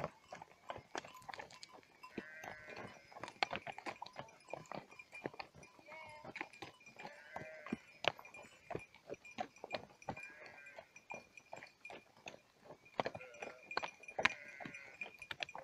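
A flock of sheep bleating several times, with bells clinking and many short clicks and knocks.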